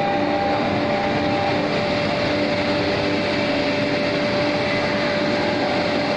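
Plywood CNC router running: a steady high spindle tone over a constant rush of machine and cutting noise, with fainter tones that come and go.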